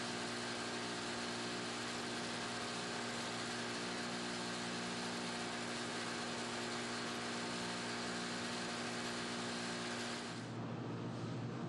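Meadows hammer mill running steadily, its electric motor and rotor giving a constant hum with several held tones over a broad rushing noise. About ten seconds in, the sound switches abruptly to a different, lower machine hum.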